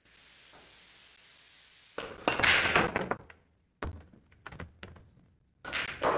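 Pool balls clacking on a pool table: a quick dense run of sharp ball-on-ball clicks about two seconds in, then a few single knocks, and another short cluster near the end.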